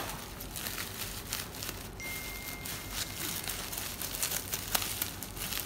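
Plastic bubble wrap crinkling and rustling in a run of small crackles as it is handled and cut open with scissors.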